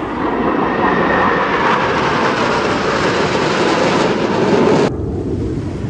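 Black Eagles T-50B jets passing overhead: a loud jet-engine rush that builds, with a faint tone sliding down in pitch as they go by. The rush cuts off abruptly near the end, leaving only a low rumble.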